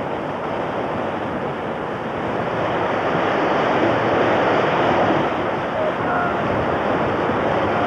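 Heavy seas breaking over a ship's rails and washing across the deck: a steady rush of surging water that grows louder about halfway through.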